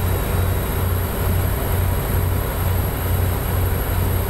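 Outrigger boat's engine running steadily under way, a low drone that pulses about twice a second, over the rush of water churning along the hull.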